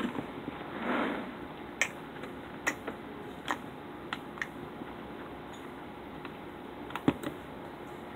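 Scattered light taps and clicks, about ten spread unevenly over several seconds, typical of fingertips tapping a touchscreen while playing a game, with a soft rustle about a second in.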